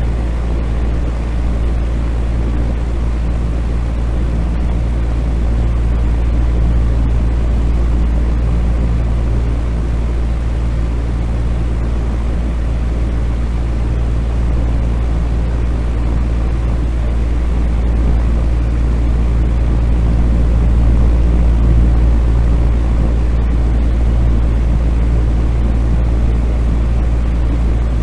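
Fan running steadily: a low hum under an even rush of air, unchanging throughout.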